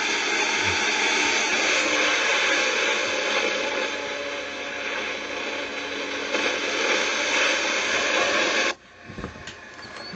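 Electric motor and propeller of an RC Carbon Cub S bush plane running steadily in flight: an even hissing drone with a faint steady whine. It cuts off suddenly near the end.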